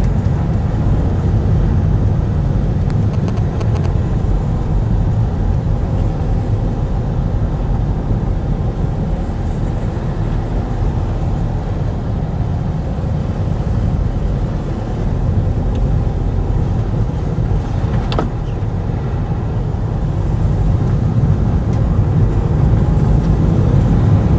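Car engine and tyre noise heard from inside the cabin while driving: a steady low rumble that grows a little louder near the end, with one brief knock about three-quarters of the way through.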